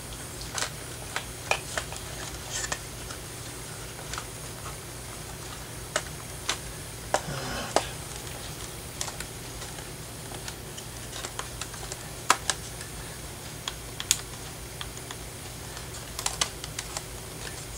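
Scattered small clicks and taps from hands handling the opened radio's plastic case, circuit boards and wiring, with a brief scrape about seven seconds in.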